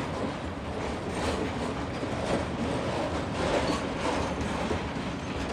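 Freight train wagons rolling past, a steady rumble and clatter of wheels on the rails.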